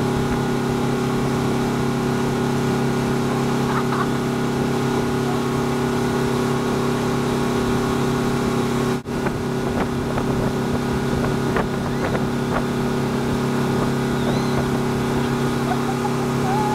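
Motorboat engine running steadily at speed while towing a tube, a constant drone over the rush of the wake. The sound cuts out for an instant about halfway through.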